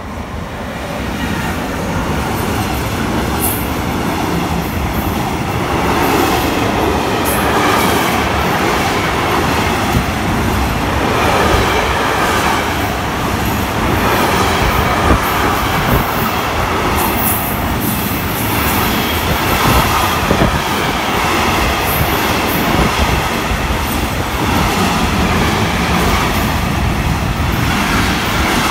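Intermodal freight train hauled by a GTS Rail E483 electric locomotive passing close by. It grows louder over the first two seconds as the locomotive goes by, then a long string of container wagons rumbles and clatters steadily over the rails, with a few brief high wheel squeals.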